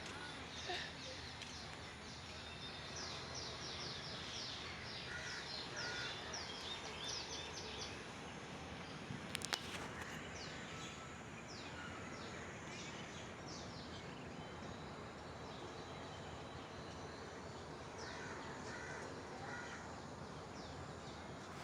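Forest ambience: a steady background hiss, with a bird singing three bouts of short, fast, high falling notes. A couple of sharp clicks about nine and a half seconds in.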